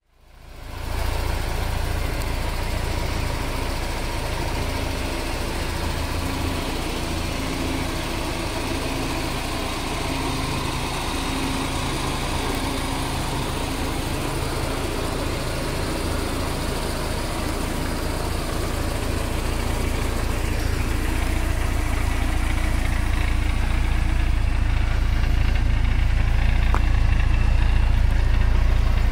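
1989 Porsche 944 S2's 3.0-litre 16-valve four-cylinder engine idling steadily, growing louder over the last several seconds.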